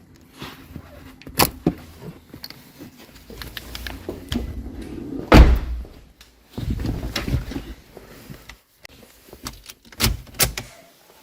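Scattered knocks and thumps, with one heavy thud about five seconds in, a pair of knocks near the end, and a low rumble between them.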